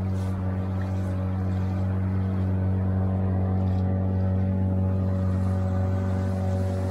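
9.9 hp outboard motor idling steadily while it warms up, an even, unchanging engine tone.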